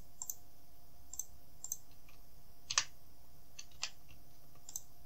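Scattered clicks of a computer mouse and keyboard keys, the two loudest about a second apart midway, over a faint steady hum.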